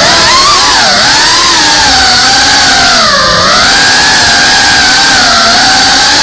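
FPV quadcopter's electric motors and propellers whining loudly, heard from the camera on board. Several pitches rise and fall together as the throttle changes, dipping about a second in and again about three seconds in.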